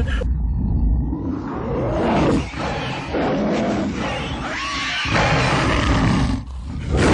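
Loud roaring growls rising and falling in pitch over a low rumble, like a beast's or monster's roar.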